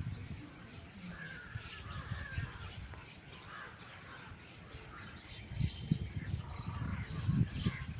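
Birds calling and chirping in short, scattered notes, with irregular low rumbling bumps near the start and through the second half.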